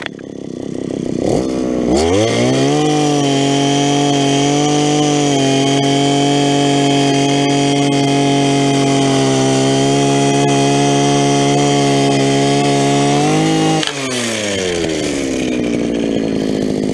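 Gas-powered ice auger engine revving up to full throttle and drilling through lake ice. It runs high and steady with slight dips in pitch as the bit bites, then the throttle is let off about three-quarters of the way in and the engine winds down to idle as the auger is lifted from the finished hole.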